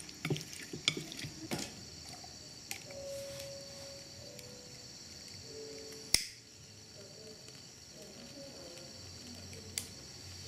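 Crickets chirping steadily, with a few light taps of chopsticks in a bowl of fish at the start, a sharp click about six seconds in, and the click of a lighter being struck near the end.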